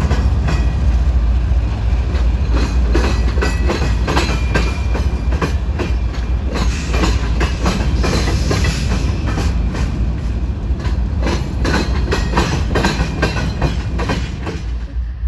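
Freight train's hopper and tank cars rolling past, steel wheels clacking irregularly over rail joints above a deep steady rumble.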